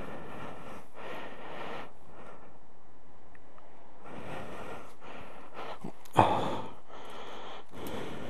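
A person breathing close to the microphone in irregular, noisy breaths, with one sharp knock about six seconds in.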